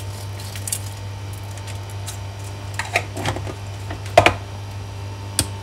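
Salt being shaken from a salt container into a pot of soup: a few short rattling shakes about three and four seconds in, the loudest near four seconds, and a sharp click near the end, over a steady low hum.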